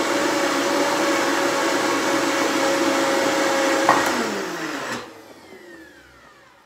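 Vitamix blender motor running steadily at speed, blending herbs and olive oil. About four seconds in it is switched off and the motor spins down with a falling whine that fades out.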